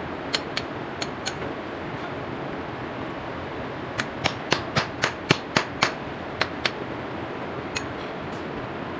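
Hammer striking a steel chisel to chip out around the water pipes: a few single blows, then a quick run of about nine strikes, roughly four a second, about four seconds in, and a few more near the end.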